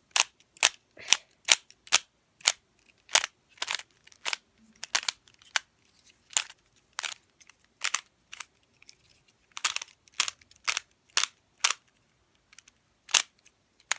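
New 3x3 Rubik's cube being turned by hand: loud, sharp plastic clicks as its layers are twisted, about two a second in an uneven rhythm, some in quick pairs.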